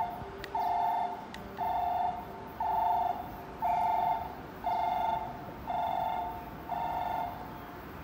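Electronic railway warning alarm sounding a buzzy two-note tone about once a second, then stopping about seven seconds in.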